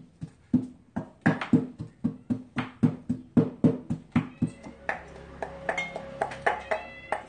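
Garlic and ginger being pounded with a pestle in a mortar: steady, even strikes at about three a second, heavier for the first four seconds and lighter after that.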